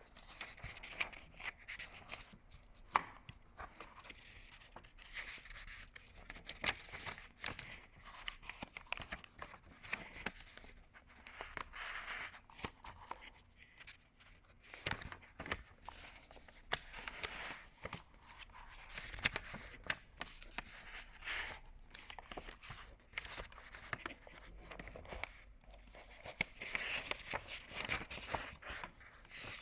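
Paper pages of a book being turned one after another: repeated rustling swishes with crisp flicks, at an irregular pace of roughly one every second or two.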